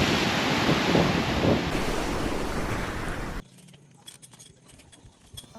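Loud, steady rushing of storm wind and water, which cuts off abruptly about three and a half seconds in. Faint scattered ticks follow.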